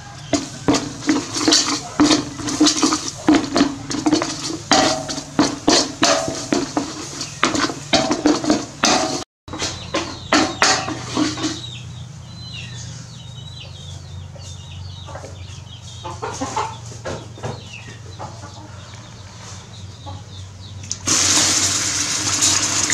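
Chickens clucking repeatedly, many short calls close together, thinning out after a short break. Near the end a loud, steady sizzling starts suddenly as sauce hits the hot pot.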